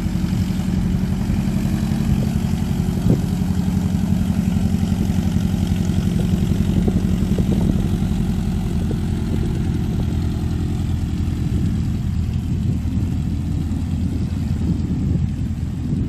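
Just Aircraft STOL bush plane's propeller engine running at a low taxi idle as the plane rolls past close by. The steady engine note becomes softer and more uneven in the last few seconds as it moves off.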